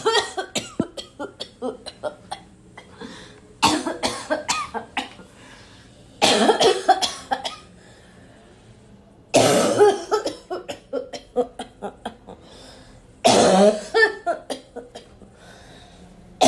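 A person's loud, barking coughing fit: bout after bout, each a harsh cough followed by a rapid string of weaker coughs that trail off, with four fresh bouts a few seconds apart.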